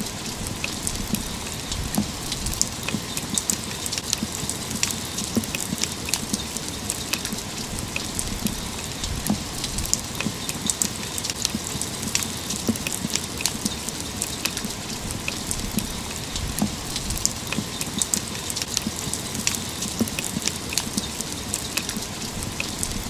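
Steady rain, with many individual drops striking a hard surface in short sharp ticks.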